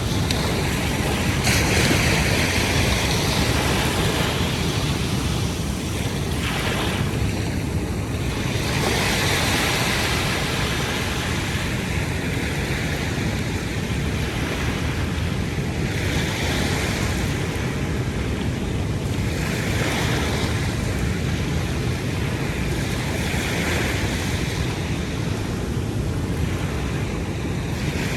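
Waves washing onto the shore, swelling and falling back every few seconds, over a steady low rumble of wind on the microphone.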